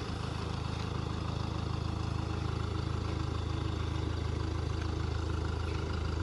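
Lifted Hyundai Terracan SUV's engine idling steadily.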